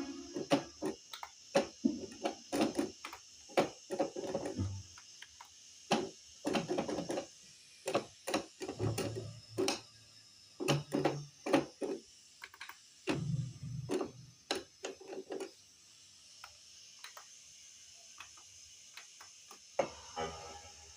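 Keys of a Roland XP-60 synthesizer keyboard clacking as they are pressed in irregular runs, with scarcely any note sounding. The clacking stops for a few seconds near the end, then resumes.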